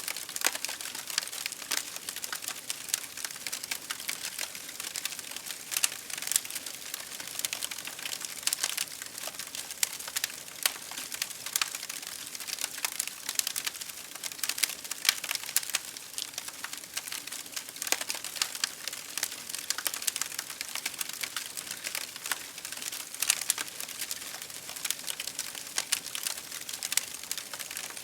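Campfire burning, crackling with frequent irregular pops and snaps over a steady hiss.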